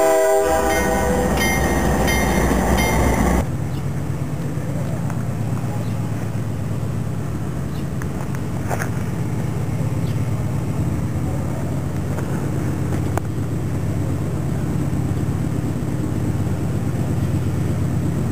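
A diesel locomotive's K3H multi-chime air horn sounds a chord for about three seconds, then cuts off abruptly. It is followed by the steady low rumble of a GE AC4400CW diesel locomotive approaching from a distance, slowly growing louder.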